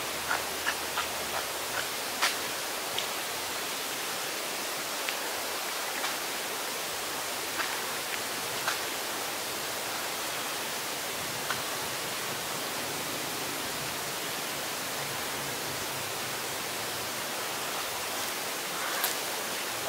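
Steady outdoor background hiss with a few faint, scattered clicks.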